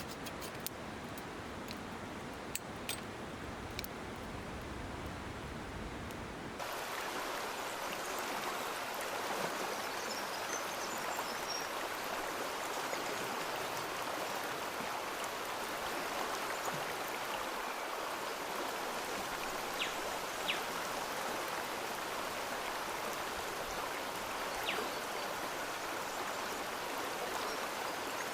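Running water, a steady rushing like a stream, that takes over abruptly about six seconds in, with a few small clicks over it.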